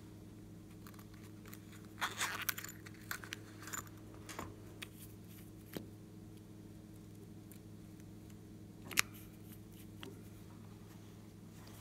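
Hands handling a liquid lip gloss tube over a dish of slime: a quick cluster of small plastic clicks and rustles about two seconds in, scattered soft ticks, and one sharp click about nine seconds in. A faint steady electrical hum runs underneath.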